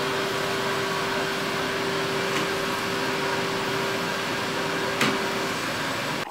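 Vacuum cleaner running steadily: an even rushing noise with a constant hum, and a single click about five seconds in.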